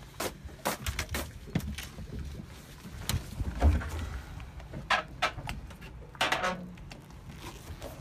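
Handling noise with scattered clicks and knocks over a low rumble, a low thump a little over three and a half seconds in, and louder scraping rustles around five and six seconds in.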